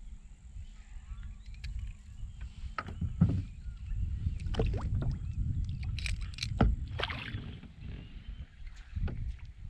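Handling noise on a kayak: sharp knocks and clicks of gear against the hull over a low, steady rumble, with the knocks bunched between about three and seven seconds in.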